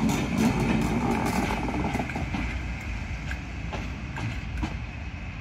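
A train running along the track, its noise gradually fading as it moves away, with a few sharp wheel clicks over rail joints in the second half.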